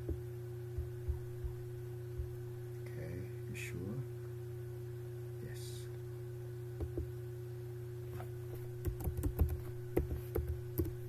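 Computer mouse clicks, a few spaced out in the first two seconds, then a quick run of keyboard keystrokes near the end as a password is typed, all over a steady electrical hum.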